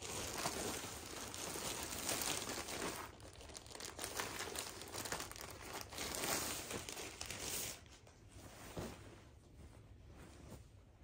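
Frosted plastic clothing bags crinkling as they are handled, dense for about the first eight seconds, then quieter with a few softer rustles.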